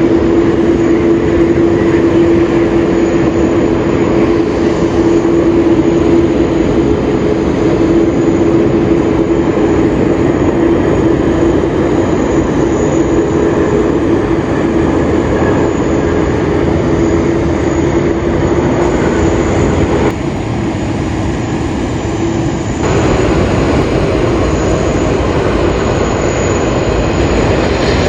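Jet engines of an Airbus A350-900 airliner landing close by: a loud, steady jet noise with a steady hum in it. The sound turns duller for a few seconds about twenty seconds in, then comes back.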